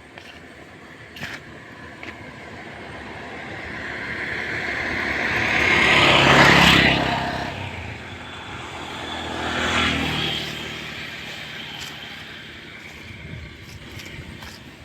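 A motor vehicle passing by, growing louder to a peak about six and a half seconds in and then fading, followed by a second, quieter pass about ten seconds in.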